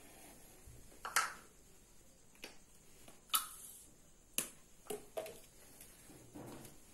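About five sharp taps at irregular intervals in a small room. The loudest come a little over a second in and just over three seconds in, and a quicker pair follows near five seconds.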